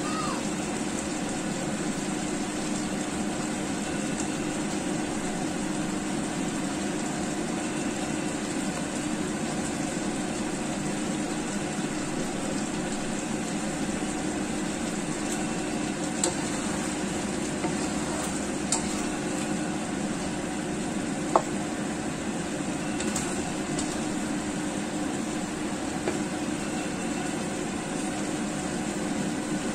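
Chicken-wing and potato curry simmering in a frying pan: a steady bubbling sizzle, with a few sharp pops about halfway through.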